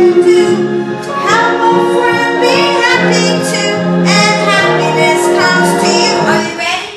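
A song with female and child-like singing voices over backing music, fading down near the end.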